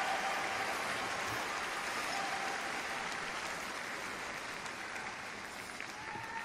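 Arena audience applauding steadily, the clapping easing off a little toward the end.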